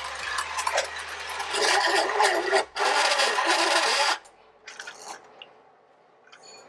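Battery-powered toy train locomotive's small electric motor whirring and its gears rattling, along with plastic cars being handled on the track. The whir cuts off about four seconds in, leaving a few faint knocks.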